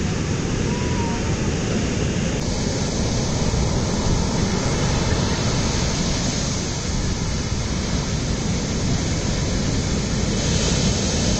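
Shorebreak waves breaking and whitewash washing up the beach: a steady noisy wash with a heavy low rumble, its tone changing abruptly about two and a half seconds in.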